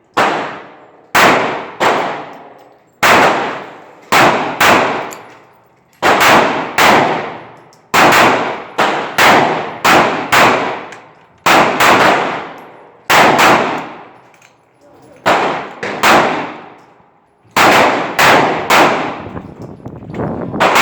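Pistol shots from a Ruger P90DC .45 ACP and the range around it: a long run of single sharp reports in uneven strings, sometimes two or three within a second, each ringing out and fading over about a second.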